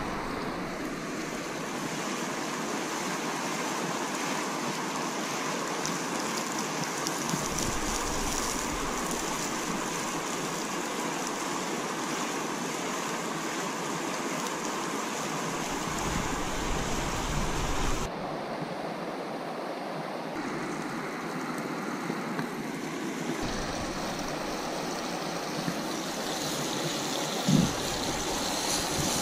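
River water rushing steadily, a continuous even hiss, with low rumbles of wind on the microphone now and then.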